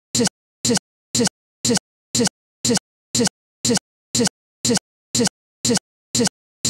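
Digital playback stutter: the same fraction-of-a-second snippet of sound repeats about twice a second, with dead silence between each repeat, the mark of a frozen, glitching recording.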